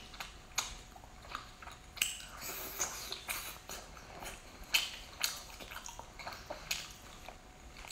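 Wet, sticky crackles and squelches as fingers pull apart the cooked meat and innards of a large sea snail, irregular, with a few sharper snaps about two and five seconds in.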